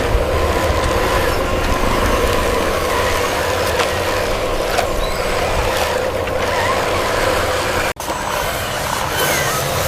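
A motor running steadily with a constant hum, broken by a brief dropout about eight seconds in.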